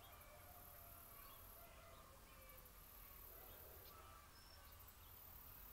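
Faint chickens calling in short, scattered calls.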